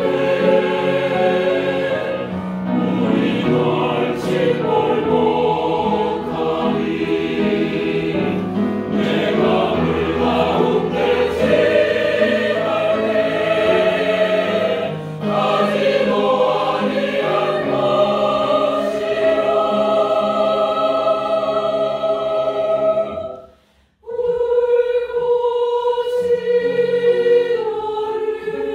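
Mixed choir of men's and women's voices singing in parts with long held notes; near the end the singing stops for a moment, then comes back in.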